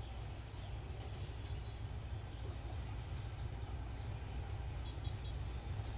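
Outdoor ambience: a steady low rumble, growing slightly louder, with a few faint bird chirps.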